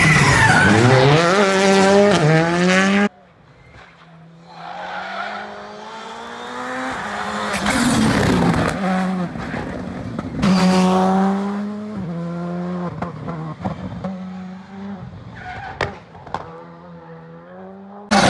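Rally car engines revved hard through tight tarmac corners, their pitch rising and falling with throttle and gear changes, with some tyre squeal. About three seconds in the sound cuts abruptly to another car approaching, which passes loudly twice and fades away, with a few sharp pops near the end.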